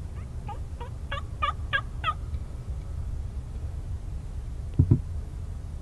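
Wild turkey gobbling once: a quick rattling run of about seven notes lasting about two seconds. Near the end, two short low thumps.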